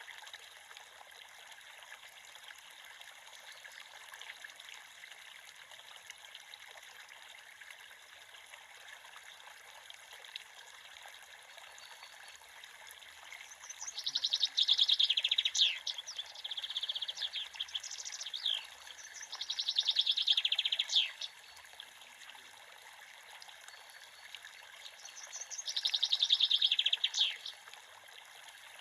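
A creek running steadily, with a songbird singing loud trilled phrases of rapid repeated notes four times in the second half, each a second or two long.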